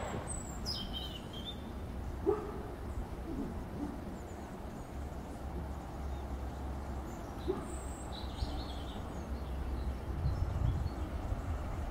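A few short, faint animal calls, with some high chirps, over a low steady rumble of outdoor ambience.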